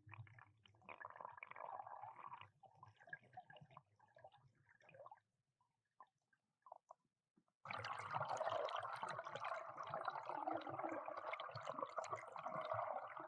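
Faint water gurgling and crackling, broken by a short near-silent gap in the middle; about two-thirds of the way in it switches abruptly to a denser, steadier crackling wash of water.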